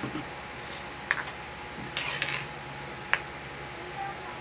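Metal ladle clinking against a cooking pot of soup broth, four short light knocks in the first three seconds.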